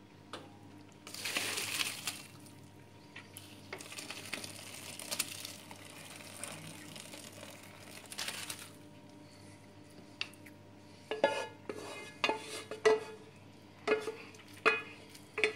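Noodle cooking water poured from an enamel pot into a plastic colander, splashing and draining through in a rushing hiss. In the last few seconds, a wooden spoon scrapes the noodles out and knocks several times against the enamelled pot, each knock ringing briefly.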